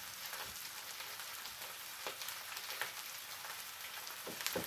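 Fennel sizzling steadily on a hot griddle, with a few soft knife knocks on a cutting board near the end as a lemon is cut.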